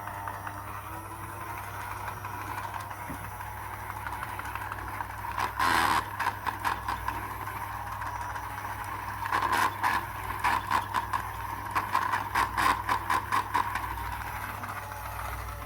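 A small motor whirring steadily, with rapid rattling clicks about six seconds in and again in a run of about three a second through the second half.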